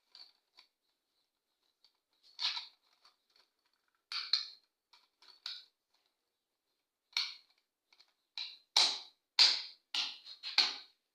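Rocker switches of a newly installed two-gang wall switch clicking on and off, a few scattered clicks at first and then a quick run of them near the end as the switch is tested.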